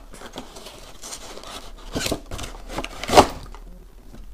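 Cardboard packaging handled: a moulded pulp tray and box lid rubbing and scraping against each other in irregular strokes, with a sharper scrape about three seconds in.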